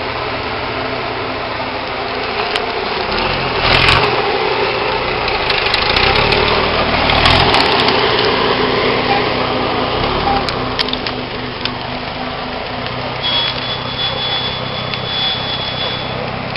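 Nissan Patrol Y60's 4.2-litre six-cylinder diesel engine running at low revs as the truck crawls off-road, rising under throttle briefly about four seconds in and again for a couple of seconds a little later.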